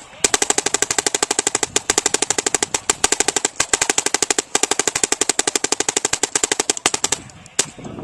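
Bob Long Insight NG electronic paintball marker firing a long, rapid stream of shots in PSP ramping mode, each a sharp pop, with a few short breaks, then a single shot near the end.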